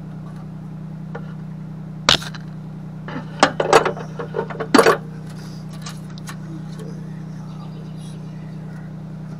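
Metal clinks as an adjustable wrench works the retaining nut on the wire-spool spindle of a MIG welder and is lifted off: one sharp clink about two seconds in, then a quick cluster of clinks and taps from about three to five seconds, over a steady low hum.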